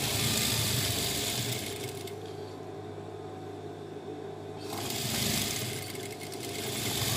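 Industrial lockstitch sewing machine stitching a seam through grey dress fabric. It runs in two spells of about two seconds each and stops in between while the fabric is repositioned.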